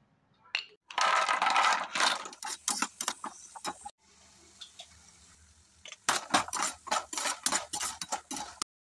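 Cashew nuts clattering and rattling in a frying pan as they are stirred with a spatula: a dense rattle, a quieter stretch with a faint hiss in the middle, then a run of quick clicks and scrapes.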